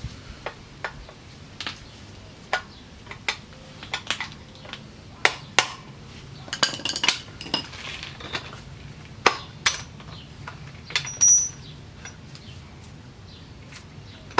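Hand tools clinking and tapping on metal while a pitbike's rear brake caliper is fitted: scattered sharp clinks at an uneven pace, a few louder ones midway.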